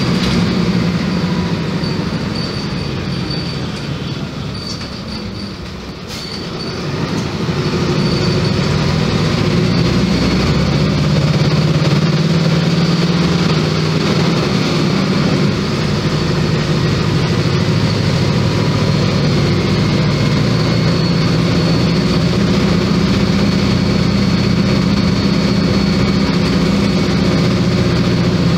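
VW 15.190 EOD bus's diesel engine running under way, heard from inside the passenger cabin. It eases off a few seconds in, then picks up again and holds a steady drone.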